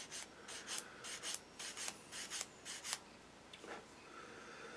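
Hand-cleaning of a small plastic model-kit part with an abrasive tool: about a dozen quick rasping strokes, mostly in pairs, over the first three seconds, then a pause.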